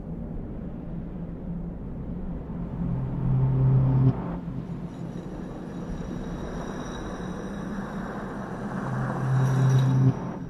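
Low cinematic rumble that swells twice, each time building for about a second and then cutting off suddenly, with faint high ringing tones in the second half.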